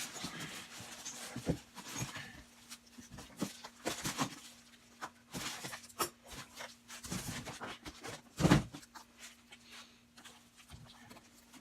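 Handling noises: irregular knocks, clicks and rustles as a boxed bench grinder and its packaging are moved about, with one louder thump about three-quarters of the way through. A faint steady hum sits underneath.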